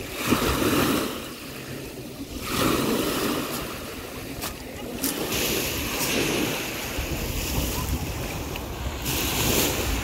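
Small sea waves washing onto a pebble beach, the surf swelling and falling back every few seconds. Wind rumbles on the microphone in the second half.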